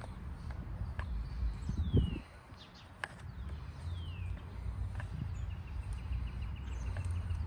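Birds calling outdoors with quick falling chirps and a rapid trill near the end, over a steady low rumble. Sharp light clicks come about once a second, and a dull thump about two seconds in is the loudest sound.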